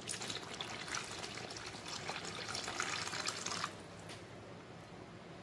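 Water poured in a steady stream into a hot kadai of mutton curry, stopping about three and a half seconds in.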